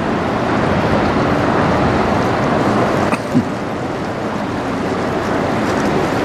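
Steady rushing wash of a passing Great Lakes bulk freighter, the Cuyahoga: water breaking along its bow wave over a faint low hum from the ship, with wind on the microphone. A brief low bump about three seconds in.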